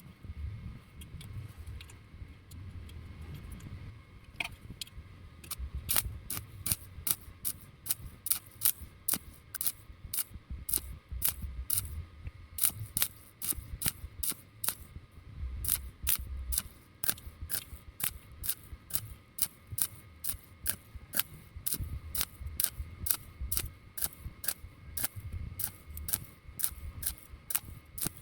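Welding in short, sharp pulses: a quick crackling click about three times a second, as when a gap is bridged tack by tack. Before it settles into this even rhythm, about six seconds in, the clicks come only now and then.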